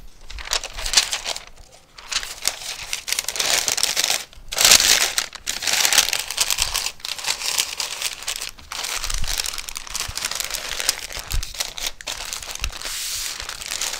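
Butcher paper crinkling and rustling in uneven bursts as it is folded and rolled tightly around a smoked brisket to wrap it.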